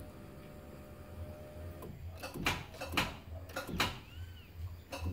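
Car starter turned over by the ignition key but stuck, the engine not cranking: a faint steady hum for about two seconds, then several sharp clicks.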